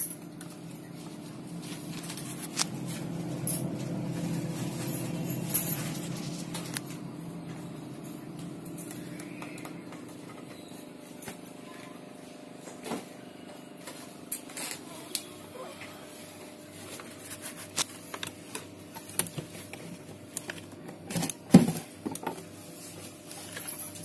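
Whirlpool refrigerator running with a steady hum, just after its defrost timer and bimetal were replaced, while its doors and compartments are opened and handled, giving scattered clicks and knocks and one louder knock a little past three-quarters through.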